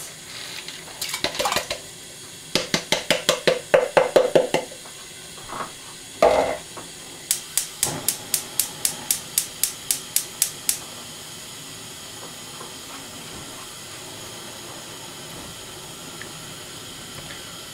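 Metal spoon stirring pearl barley into broth in a pot, clinking against the pot in quick runs of strikes, about four or five a second, with one heavier knock near the middle. A steady faint hiss runs underneath and is all that is left in the last third.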